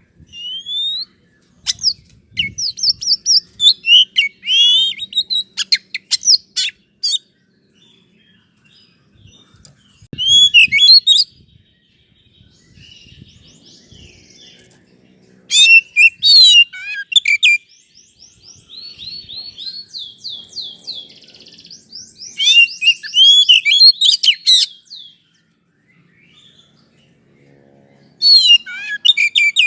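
Oriental magpie-robin singing: loud, varied whistled phrases and fast trills in bursts of one to three seconds with short pauses between, and a softer run of quick repeated notes about two-thirds of the way through.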